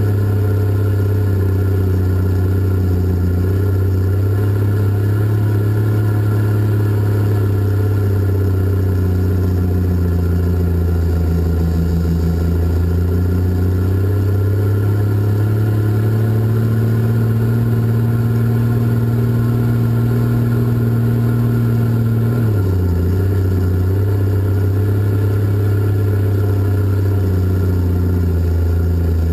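Cat 627 scraper's twin diesel engines running as it travels hauling dirt, heard from inside the cab: a loud, steady low drone whose pitch drifts slightly and dips briefly about 22 seconds in.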